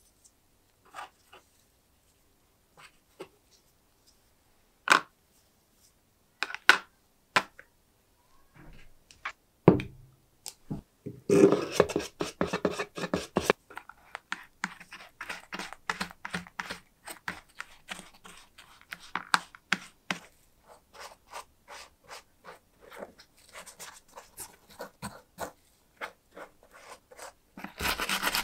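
Small metal parts clicking and tapping as they are picked up off a wooden tabletop, then a stiff paint brush dabbing and scrubbing paint stripper onto metal rings and a rusty monocular body in a plastic tray: a dense run of quick scratchy taps. Near the end a steady rubbing starts as the softened paint is scrubbed off.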